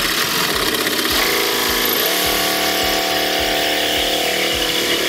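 DeWalt cordless jigsaw cutting through plywood sheathing, running steadily with the motor's pitch shifting slightly about two seconds in.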